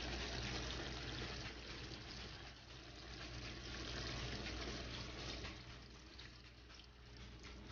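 Vinegar poured from a bottle onto beef and vegetables in a frying pan: a soft, faint pouring and trickling of liquid over a low steady hum.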